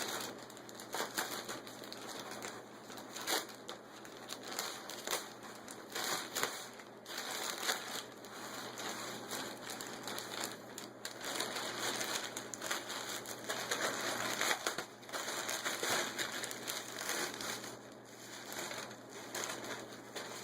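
Packaging being torn open and unwrapped by hand: continuous rustling and crinkling with frequent sharp crackles.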